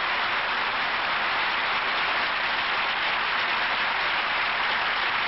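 Large audience applauding, a dense, steady wash of clapping that holds at the same level throughout.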